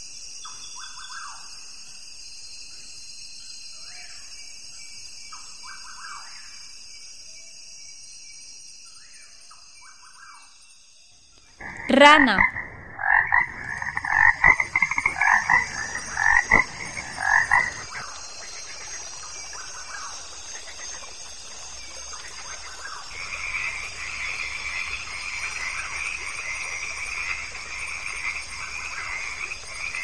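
Frogs croaking: about halfway through, a run of loud croaks in quick bursts for about five seconds, then a quieter, continuous frog chorus that grows denser near the end.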